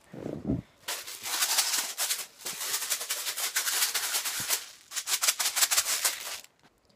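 Homemade rattle, a small tin can filled with plastic airsoft BBs, shaken hard in three spells of dense rattling that stop shortly before the end.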